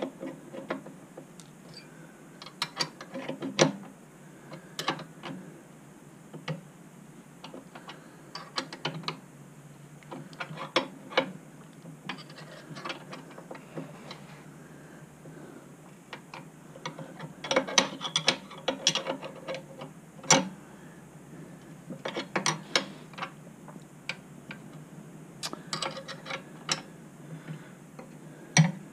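Spanner working the nut onto a BSA A70L motorcycle mainstand's pivot bolt: short runs of quick metallic clicks, over and over, as the nut is turned up to its shoulder.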